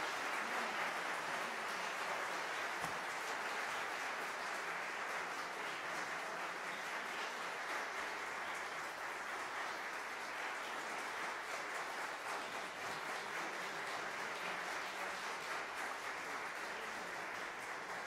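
Audience applauding, a dense steady patter of many hands clapping that eases off slowly toward the end.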